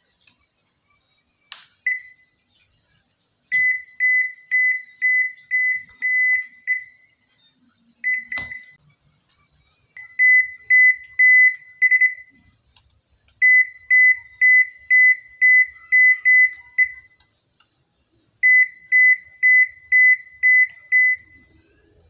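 Toshiba AW-9770S washing machine's control panel beeping during the button-combination reset for an E71 error. A click and a single high beep come about two seconds in and again around eight seconds. Four runs of rapid, evenly spaced beeps at the same pitch follow, about two beeps a second.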